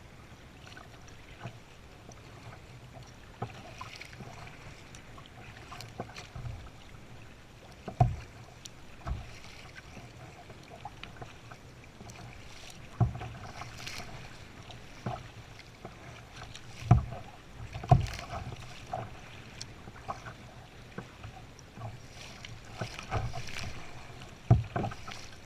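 Kayak being paddled: the paddle dips and splashes in the water stroke after stroke, with a few sharp knocks scattered at irregular moments.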